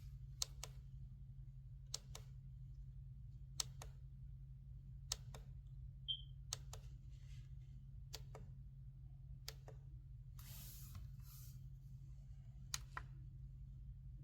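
A faint steady low hum with pairs of light clicks repeating about every second and a half.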